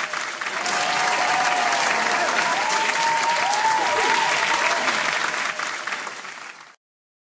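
A crowd applauding and cheering, with voices gliding up and down over the clapping. It fades down near the end, then cuts off suddenly.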